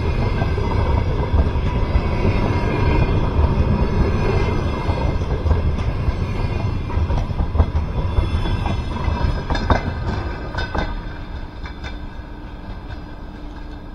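Double-deck passenger coaches rolling past at speed: a steady rumble of wheels on rails with a few sharp clacks over rail joints, fading over the last few seconds as the train draws away.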